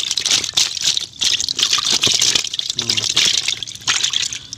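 Water splashing and sloshing in irregular bursts in a plastic tub, as a hand stirs among live snakeskin gourami.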